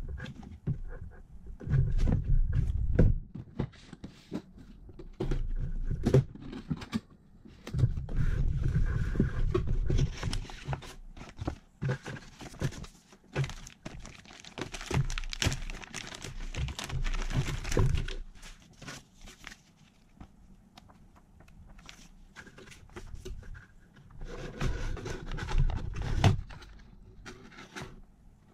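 Unboxing handling noise: cardboard box and inner packaging knocked and slid about in irregular thumps and scrapes, with a stretch of plastic bag crinkling in the middle.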